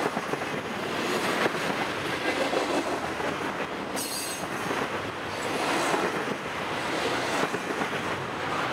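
Double-stack intermodal well cars rolling past: a steady rumble and clatter of steel wheels on the rails, with a brief high wheel squeal about halfway through.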